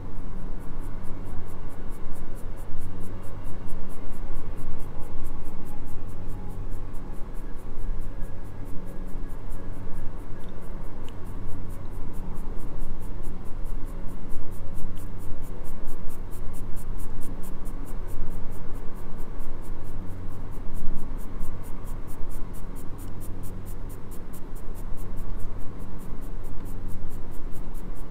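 Graphite pencil shading on drawing paper, a continuous run of rubbing strokes, with soft background music.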